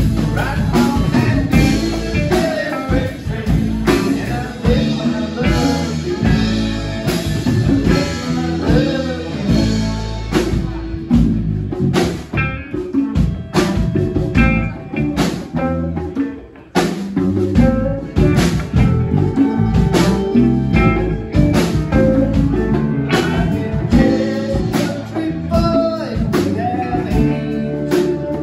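Live band playing a song on a club stage: electric guitar, bass, drums and keyboards, with a saxophonist in the line-up. The music drops out briefly a little past halfway, then the full band comes back in.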